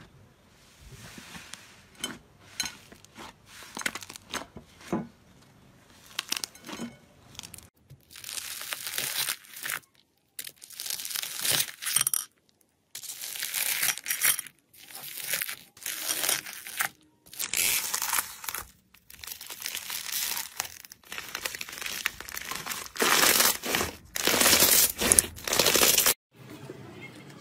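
Hands working slime: faint crackling as the dried crust of an iceberg slime is broken, then a run of loud crunchy, crinkling squishes, each a second or two long with short pauses, as floam beads and slime are poked and squeezed.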